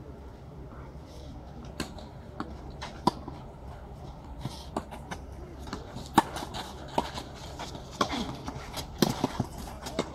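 Tennis rally on a clay court: sharp pops of the ball striking racket strings, traded back and forth every second or two, with softer thuds of the ball bouncing. The loudest hit comes about six seconds in, from the nearer player's forehand.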